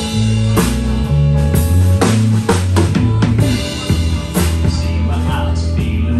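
Live rock band playing: drum kit with kick and snare hits over a steady electric bass line and electric guitars.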